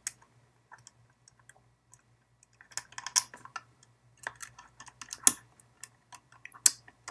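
Small screwdriver driving a screw back into the plastic shell of a Logitech M305 wireless mouse: scattered light clicks and ticks of the tool and the handled plastic, in loose clusters, with a sharper click near the end.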